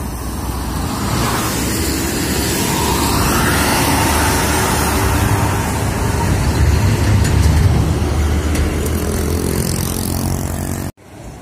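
An intercity coach and then a dump truck drive past close by, with loud engine rumble and tyre roar that builds and is loudest about seven to eight seconds in. The sound cuts off suddenly near the end.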